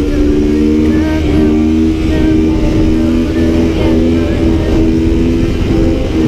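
Sport quad engine running steadily at road speed, with background music mixed in.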